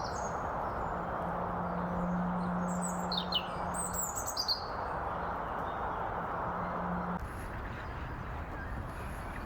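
Small birds chirping: a quick cluster of high calls about three to four seconds in, over a steady background hiss and a low hum that stop about seven seconds in.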